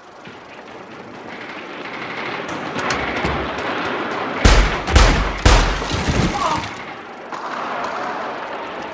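Three pistol shots in quick succession, about half a second apart, some four and a half seconds in, over a steadily rising background din.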